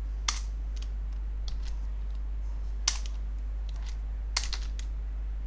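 Computer keyboard keys tapped slowly and unevenly, scattered single clicks with the sharpest about three seconds in, over a steady low electrical hum.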